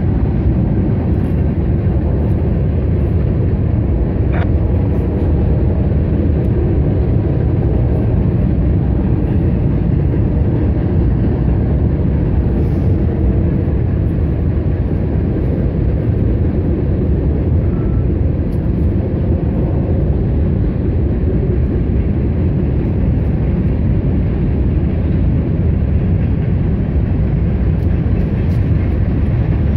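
Freight train of covered grain hopper cars rolling past, a steady, unbroken rumble of wheels on rail.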